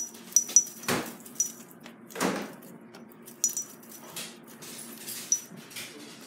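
A cat wand toy with foil streamers jingling and rattling as it is shaken. There are short high pings and clicks here and there, and a few louder brushing noises in the first half.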